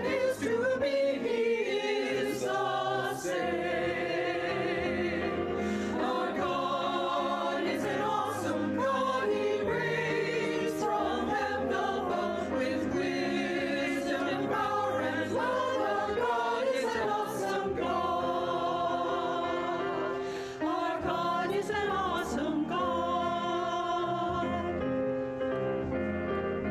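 Mixed church choir of men and women singing an anthem with piano accompaniment, full and sustained.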